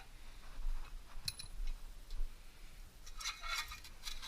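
A few light metallic clicks and clinks from hand tools and a loose exhaust bolt being worked off a small engine, with a short cluster of rattling clicks near the end.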